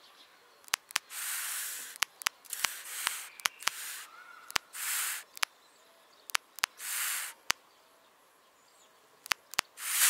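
Long-eared owl chicks hissing and snapping their bills: a string of sharp clicks with about six short hisses between them, the last one the loudest. It is the chicks' defensive threat display toward something close to the nest.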